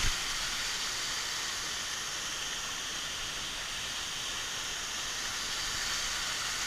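Waterfall: a steady, even rush of falling water, with a brief low thump right at the start.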